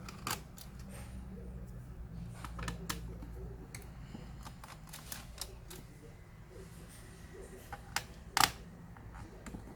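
Scattered small clicks and light knocks of a laptop's plastic parts and screws being handled and set down during disassembly, with one louder knock near the end.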